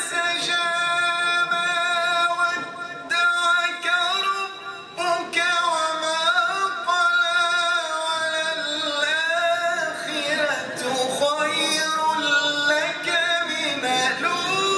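A man singing solo into a microphone in a melismatic Arabic chanting style, with long, ornamented held notes that waver in pitch.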